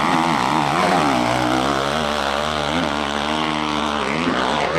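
Dirt bike engine revving hard as it climbs a steep hill, its pitch rising and falling several times with the throttle.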